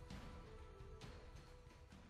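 Quiet background music fading out, with sustained tones and soft repeated strikes.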